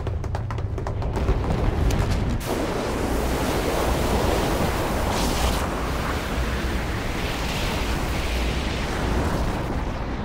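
Animated sound effect of a violent storm and destruction: a continuous deep rumbling roar under a rushing wind-like noise, with a brief brighter hiss about five seconds in.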